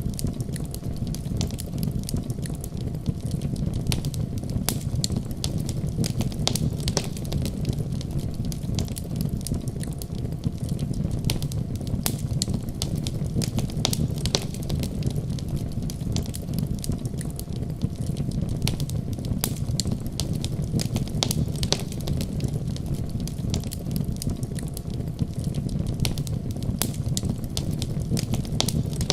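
Wood fire crackling in a fireplace: frequent, irregular sharp pops and snaps of burning logs over a steady low rumble.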